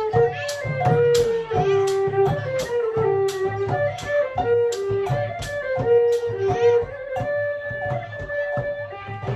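Khmer chhayam dance music: a melody of held, stepping notes over a steady beat of cymbal and drum strikes, about two a second.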